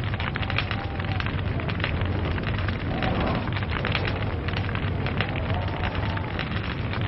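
Log fire burning, with dense irregular crackling and popping over a steady low rumble of the flames.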